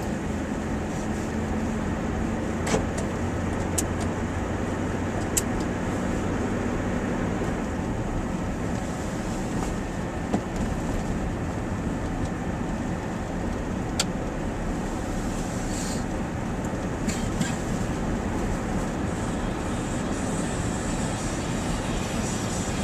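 Steady road and engine noise of a moving vehicle, with a few sharp clicks scattered through it.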